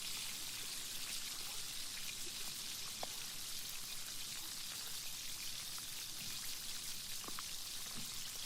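Chicken deep-frying in hot oil: a steady crackling sizzle with scattered small pops.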